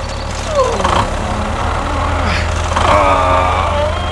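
Steady low tractor-engine drone, the kind of sound effect laid under a toy tractor scene. A falling squeal comes about half a second in, and a held, slightly wavering tone with several pitches about three seconds in.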